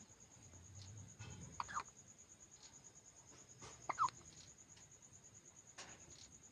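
A baby hiccuping: two short, squeaky hics, the first about a second and a half in and the second about four seconds in.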